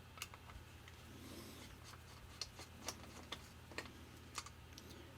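Faint, irregular small clicks and light rubbing of a Phillips screwdriver backing small screws out of a model locomotive's packaging, over a low steady hum.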